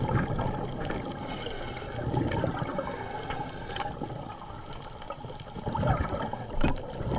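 Underwater bubbling and gurgling around a diver, with a few sharp clicks.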